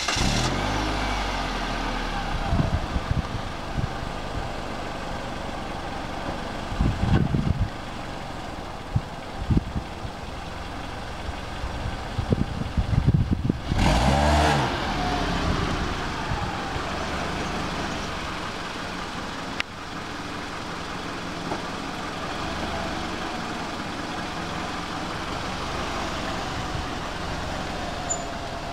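Car engine running at idle just after starting, revved briefly about halfway through as the car is put in reverse, with a few knocks and thumps around the rev.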